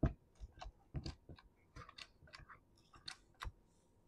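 Light handling noises at a chainsaw's top end: a dozen or so faint, irregular clicks and taps as a small tool is worked near the open spark-plug hole.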